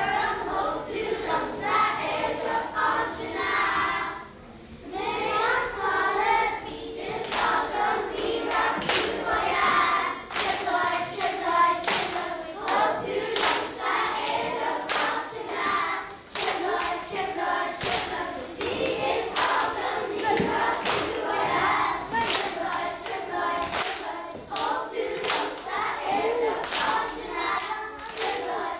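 A children's choir singing. About a quarter of the way in, steady hand-clapping in time joins it, about two claps a second.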